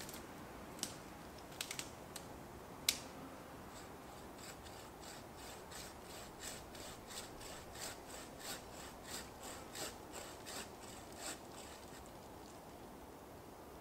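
A hand saw cutting a tree branch, heard faintly, with steady strokes about one and a half a second for several seconds. A few sharp cracks come before the sawing starts.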